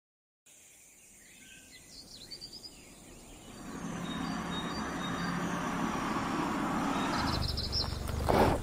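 Outdoor ambience as a lead-in: a few faint bird chirps, then a steady rush of environmental noise that swells in about three and a half seconds in and holds steady.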